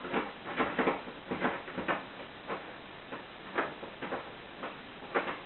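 Universal key being raked in and out of a Euro cylinder lock: a run of short, irregular clicks and scrapes, about two a second.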